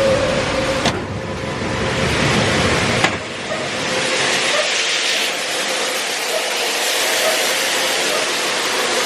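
Corn grain dryer running: a steady, loud rush of fan and air noise, with a brief click about a second in and another about three seconds in.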